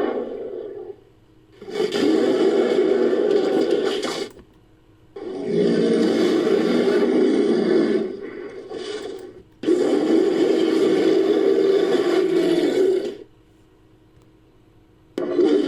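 Designed monster roars, built from mixed creature and King Kong sounds: a call fading out at the start, then three long roars of about three seconds each with short pauses between them, and a fourth beginning near the end.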